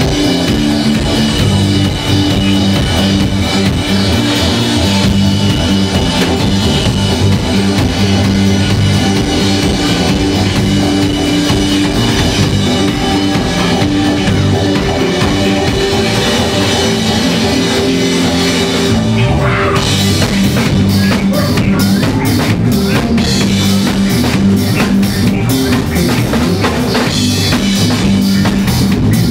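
Live psychedelic electronic band music, with held bass and synth tones over a drum beat. About twenty seconds in, a sharper percussion pattern of crisp, rapid ticks comes in.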